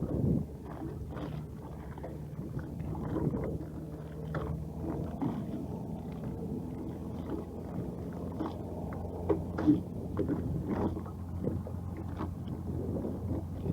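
Steady low hum of a fishing boat lying at anchor, with scattered small knocks and taps.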